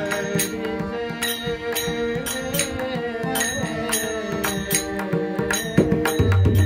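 Marathi devotional bhajan music: a sung melody with pakhwaj drum accompaniment and sharp strokes about two or three times a second.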